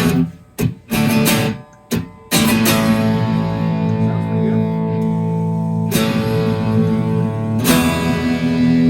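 1960s Silvertone 1446 electric guitar being strummed: a few short, choppy chords, then full chords left to ring, with a change of chord about six seconds in and again near the end.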